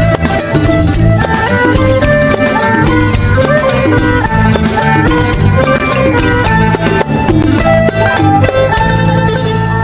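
Instrumental music with a steady drum beat and a melody of quick, changing notes, in a traditional style.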